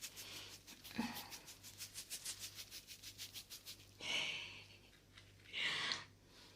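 Two breathy exhales close to the microphone, about four and six seconds in. Before them comes a fast run of faint, even strokes at about seven a second, with a click about a second in.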